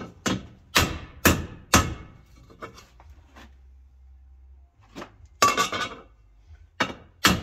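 Hammer blows on a stamped-steel Jeep differential cover held on a bench vise, each a sharp metallic strike with a short ring: a quick run of strikes, a pause of about three seconds, then more strikes near the end.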